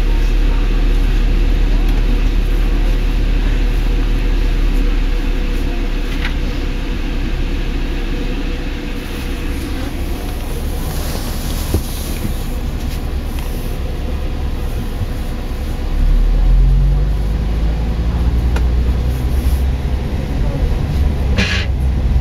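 Bus heard from inside the cabin: a steady low engine and road rumble, with the engine note rising and growing louder as the bus speeds up about three-quarters of the way through.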